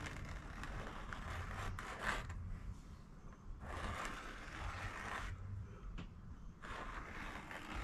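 Pencil scratching on an 18-inch subwoofer cone, tracing around the dust cap to mark its glue line. It comes as three long scratchy passes, each about a second and a half.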